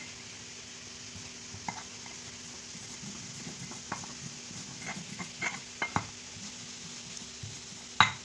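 Stone pestle knocking and scraping in a stone mortar (cobek and ulekan) as turmeric, coriander and salt are ground for a spice paste. Scattered small knocks become more frequent after a few seconds, and there is one sharp, louder knock near the end. A faint steady hiss and hum run underneath.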